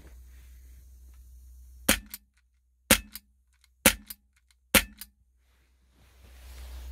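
Sig Sauer P320 CO2 air pistol firing four shots about a second apart. Each is a sharp pop followed by a quick click.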